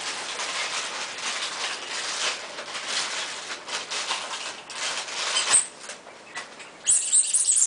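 Plastic wrapping crinkling and rustling in the hands as a rubber duck is unwrapped, with a louder burst of crinkling near the end.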